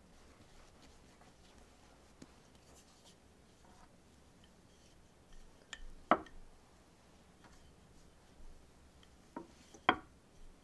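Soft rubbing of hands shaping a ball of bread dough, then a wooden rolling pin rolling out the dough on a wooden board, knocking sharply against the board about six seconds in and again near the end.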